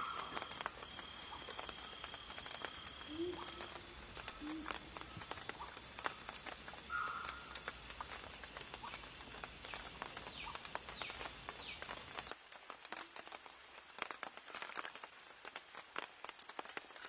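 Forest ambience: a steady high two-note insect-like whine and short bird-like chirps over a scatter of many sharp little clicks. About twelve seconds in, the whine and the low rumble cut off and only the clicks and faint chirps remain.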